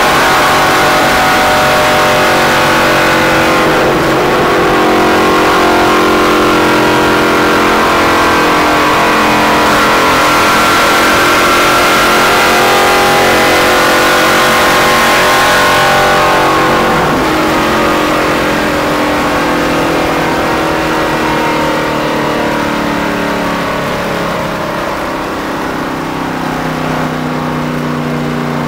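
Stock car's V8 engine running flat out at speed, heard from inside the cockpit over road and wind noise. About halfway through, the revs fall steadily and the sound grows quieter as the car slows.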